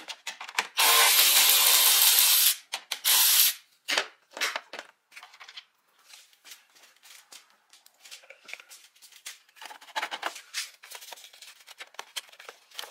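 Two loud bursts of rasping noise, one about a second in lasting nearly two seconds and a shorter one soon after, followed by scattered clicks, knocks and rubbing as parts and tools are worked on during removal of the stock air box.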